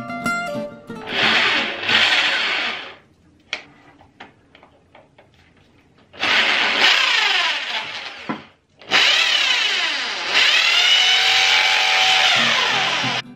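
Corded electric drill run in three long bursts, the motor's whine dipping and rising in pitch as the trigger is worked, with a few short clicks between the first two bursts.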